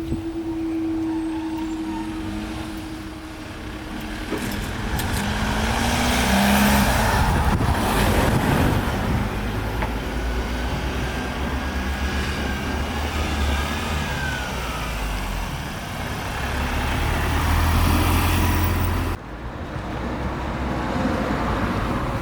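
Road traffic: cars and heavier vehicles driving past, the rumble swelling and fading, with a steady hum over it in the first few seconds. The sound drops off suddenly near the end, then picks up again.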